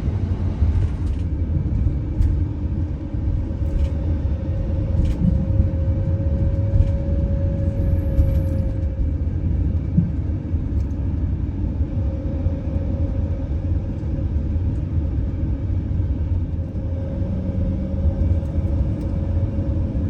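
RV driving along a road, heard from inside the cab: a steady low rumble of engine and road noise, with a faint steady hum above it.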